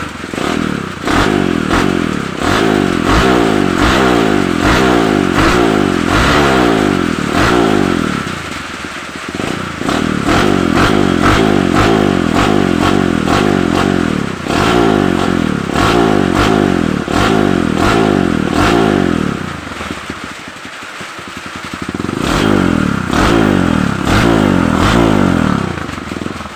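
Kawasaki KLX150's single-cylinder four-stroke engine, fitted with a reground performance camshaft, revved in three long spells and dropping back to a lower idle twice between them. The exhaust note is choppy, with many sharp pops and clicks running through it.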